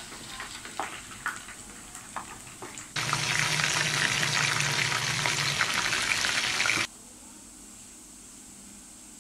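Food deep-frying in bubbling oil, crackling with scattered pops; about three seconds in, a much louder, dense sizzle of chicken frying in oil in a pan takes over and cuts off suddenly near seven seconds, leaving a faint hiss.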